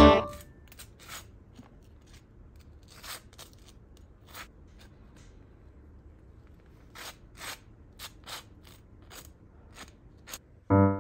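Table knife scraping cream cheese across crisp toasted bread: a string of short, dry scrapes, irregularly spaced, with a pause in the middle. Piano music fades out at the start and comes back in near the end.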